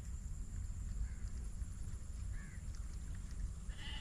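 Wind buffeting the microphone in a steady rumble, with a short faint bird call about two and a half seconds in.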